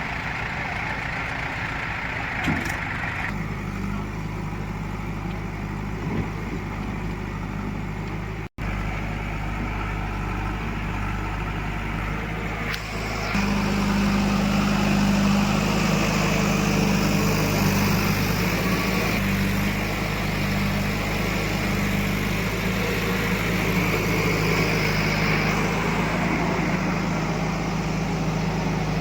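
Diesel engine of heavy machinery running steadily. Its note changes about 3 seconds in, the sound cuts out for an instant near the middle, and from about 13 seconds in the engine runs louder.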